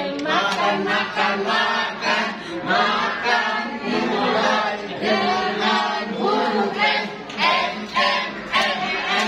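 A group of adults singing together in unison, one voice stack after another with no pause.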